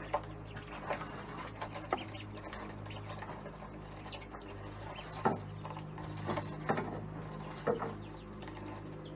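Metal-tined rake dragging pine straw across a dirt floor: irregular scraping strokes with short clicks and a few sharper knocks as the tines catch on straw, ground and boards.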